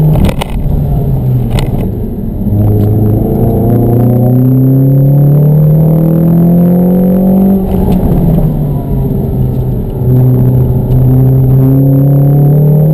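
Ford Fiesta ST with the Mountune MR200 tune, its 2.0-litre four-cylinder engine heard from inside the cabin under hard acceleration. The engine note rises steadily in pitch, drops sharply at each gear change and climbs again. There are a couple of sharp knocks in the first two seconds.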